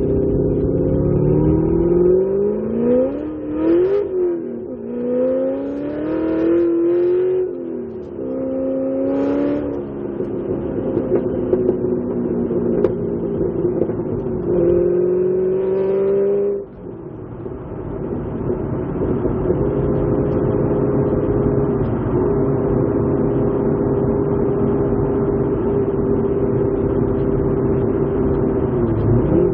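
Corvette Z06 V8 through an AWE axle-back exhaust, accelerating up through about three gears with the pitch rising and dropping at each shift, then holding, lifting off abruptly, and settling into a steady cruise.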